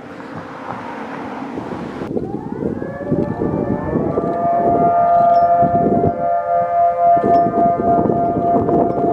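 A brief rushing noise cuts off about two seconds in. An outdoor tornado warning siren then winds up in pitch and settles into a steady, loud wail, with a low rumbling noise under it.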